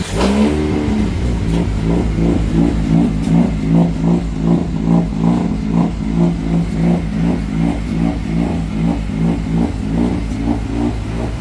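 Rotary car engine idling just after starting on a lumpy 'BRAP' idle tune, its note swelling and dipping evenly about twice a second.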